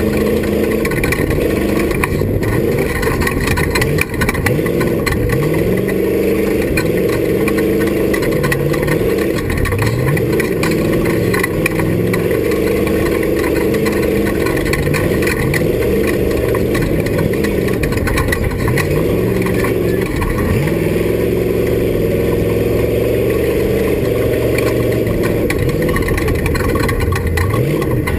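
Off-road race vehicle's engine running hard, its pitch repeatedly climbing and then dropping back as the throttle and gears change, over a steady loud noise of the running vehicle.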